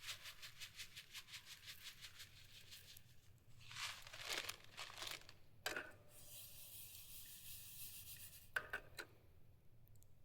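Faint crinkling and tearing of a plastic packet of vermicelli being opened and handled for cooking. A quick, even crackle runs for the first few seconds, then come three louder rustles.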